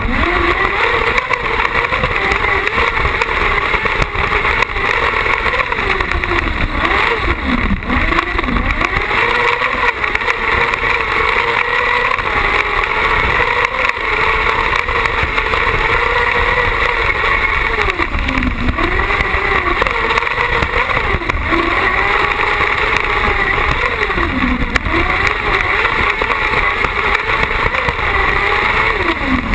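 Carcross buggy's motorcycle-type engine running at high revs, heard from on board the car. The revs fall away and climb back several times as the buggy goes through corners.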